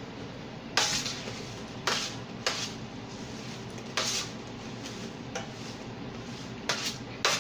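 Metal tongs clinking against a stainless steel tray as fried potato wedges are moved about, about six sharp clinks spaced unevenly.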